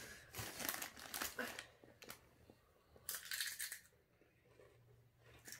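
Two bursts of crisp rustling and crunching from a snack chip bag being handled and chips being eaten: one in the first second and a half, a shorter one about three seconds in.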